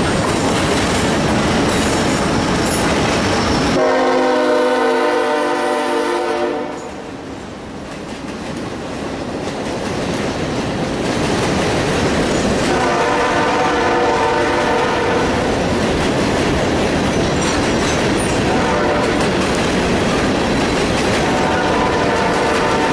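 Freight train's diesel locomotive rumbling past close by, sounding its multi-tone horn about four seconds in for a couple of seconds, cut off sharply. Then a string of hopper cars rolling across the steel bridge with wheels clattering over the rail joints, with fainter tones sounding now and then.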